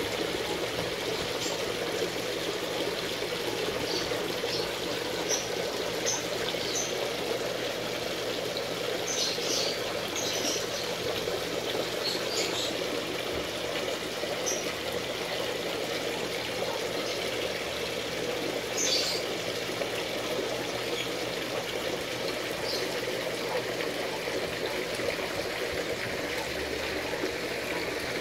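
Water trickling and pouring steadily into a garden fish pond. A few brief, faint high chirps sound now and then over it.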